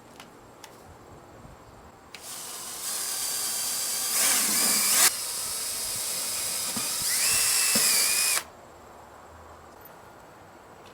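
Power drill running with a high whine, starting about two seconds in, loudest around four to five seconds, dropping for a moment just after five seconds, then running on until it stops about eight seconds in.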